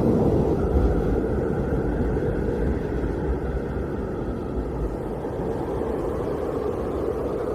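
Blizzard wind blowing as a deep, steady rumble, easing a little over the first few seconds.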